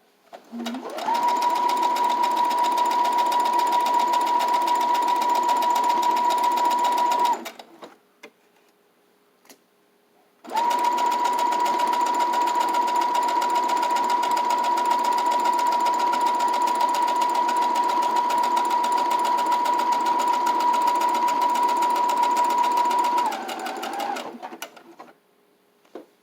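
Electric sewing machine stitching fabric at a steady speed, in two runs: one of about seven seconds and, after a pause of about three seconds, one of about fourteen seconds that slows briefly just before it stops near the end.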